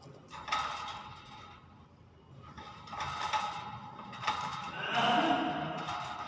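Pet common hill myna giving three short pitched calls, the last and loudest near the end, with a few sharp clicks between them.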